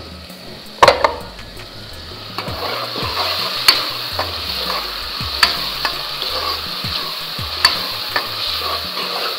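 Chopped onions and tomatoes frying in a pot, a steady sizzle that builds from about two and a half seconds in, while a metal spoon stirs them and clicks against the pot now and then. Two sharp knocks about a second in.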